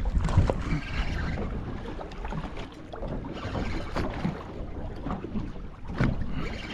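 Wind buffeting the microphone and water slapping against a small boat's hull as it rocks at anchor, with a couple of sharp knocks, the louder one near the end.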